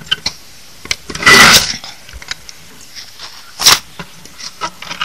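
Handling noise of CRT TV circuit boards with metal shields being lifted and turned over: a short rustle about a second in, a sharp knock a little before four seconds, and lighter clicks between.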